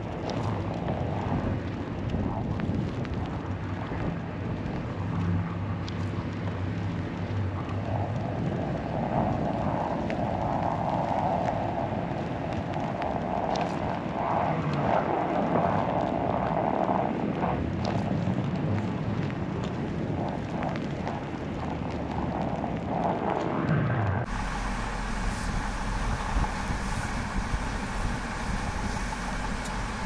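A car's engine hum and road noise as it drives slowly along a snow-packed road. About three-quarters of the way through, the sound switches abruptly to wind buffeting the microphone with a low rumble.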